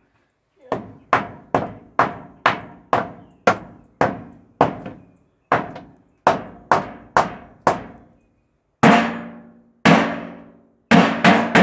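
Hammer driving nails into wood: a steady run of about fifteen blows at roughly two a second, then a pause and five harder, louder blows, the last three in quick succession.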